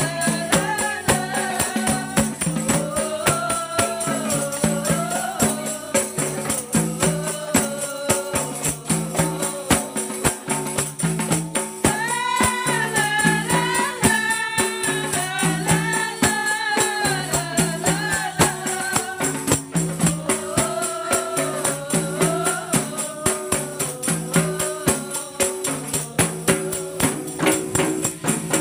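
Women singing a qasidah in unison over shaken and struck jingle tambourines, with a rebana frame drum keeping a steady beat.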